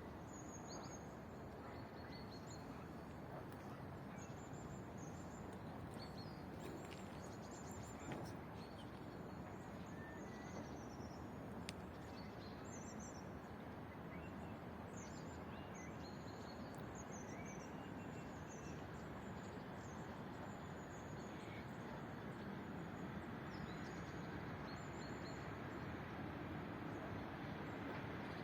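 Small birds chirping in short, high calls over a steady outdoor background hum, which grows slightly louder near the end.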